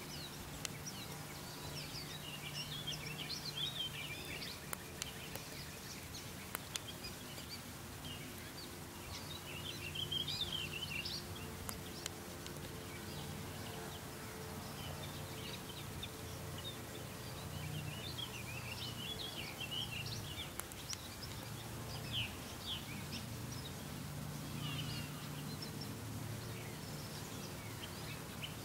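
Several songbirds calling and singing in short, scattered phrases over a steady low hum.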